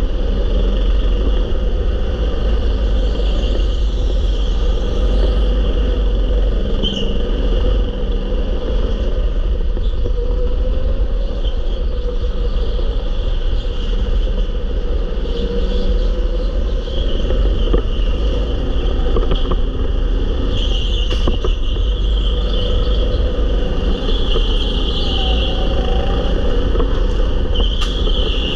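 Go-kart running flat out on an indoor track, heard from the kart itself: a steady loud drone with heavy low rumble from wind and vibration on the onboard camera's microphone. A few brief higher-pitched swells come in the second half.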